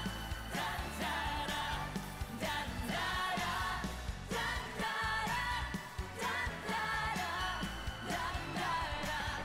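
Live pop performance: a singer's voice over a band with a steady beat.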